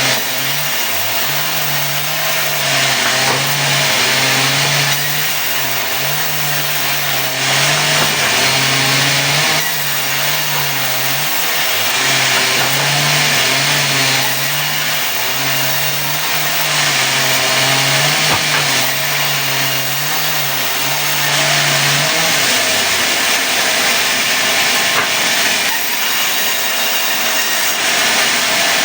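Sawmill running while cutting mahogany into boards: a steady engine drone that shifts in pitch, with the hiss of the saw through the wood swelling and fading every few seconds. The engine slows about two-thirds of the way in and picks up again near the end.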